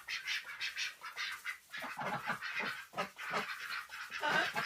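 Flock of domestic ducks and chickens calling: a dense run of short, rapid, raspy calls.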